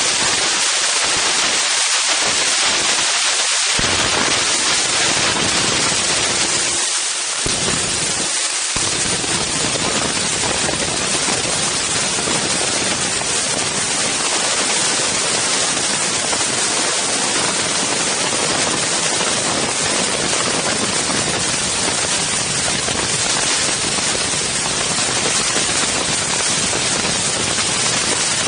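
Strong wind blowing across the microphone of an Insta360 One X camera: a loud, steady rushing noise. The deep rumble drops out briefly a few times in the first nine seconds.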